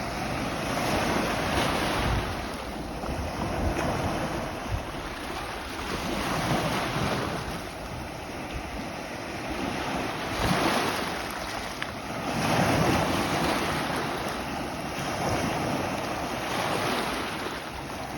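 Sea waves breaking on a pebble beach, washing up over the stones and drawing back, swelling and ebbing every few seconds.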